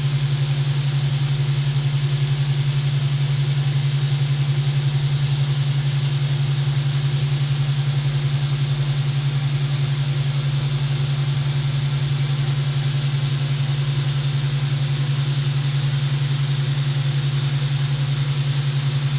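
A steady low hum with a fast, even pulsing flutter and a hiss behind it, with faint short high blips every second or two.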